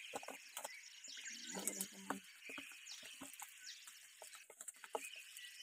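Lamtoro (leucaena) seeds frying in hot oil in a pan, crackling with many small irregular pops over a quiet sizzle.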